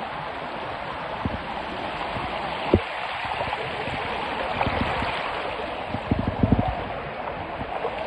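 Steady rush of waterfall water pouring over rocks, with a sharp knock about three seconds in and a few low thumps later on.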